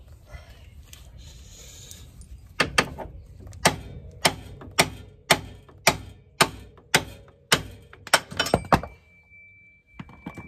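Metal hammer blows on a steel suspension part, about a dozen strikes at roughly two a second, as a new BMW E36 front control arm is knocked into place.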